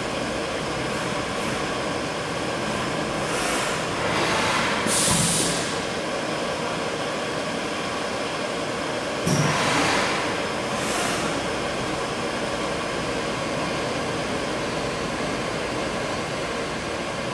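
Haas UMC-750 five-axis machining centre running a cut under flood coolant: a steady hiss of coolant spraying over the spindle and the machine's running. It swells louder twice, a few seconds in and again about halfway, the second time starting abruptly.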